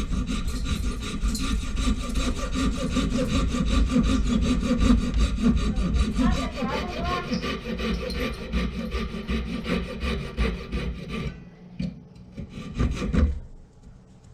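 Electric drill boring out the broken fiberglass handle stub lodged in a hatchet head, running with a fast, rough, grinding chatter. It stops about eleven seconds in, followed by a few knocks.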